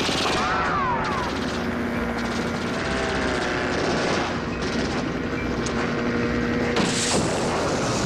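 Film battle sound effects: aircraft engines droning with rapid machine-gun fire, and a brief rising-and-falling whine about half a second in.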